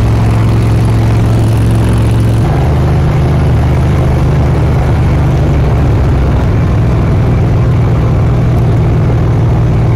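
Hot rod engine running loud and steady while the car is driven, its note changing about two and a half seconds in.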